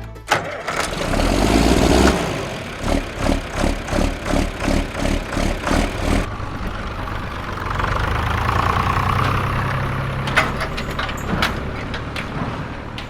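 A motor running, pulsing in an even rhythm about two to three times a second, then settling into a steadier hum with a few sharp clicks near the end.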